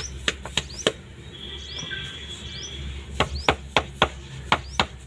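Bare palms slapping jowar (sorghum) dough on a floured stone slab, patting it out into a thin roti. There are three sharp slaps within the first second, a pause, then steady patting at about three slaps a second from about three seconds in.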